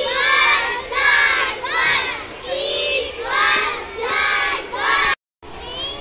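A group of young children shouting together in a series of short, loud shouts about a second apart. Just after five seconds the sound drops out briefly, followed by quieter children's voices.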